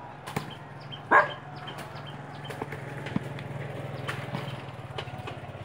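Volleyball being struck by hand several times, sharp slaps with the loudest about a second in, over a steady low pulsing hum that cuts off near the end.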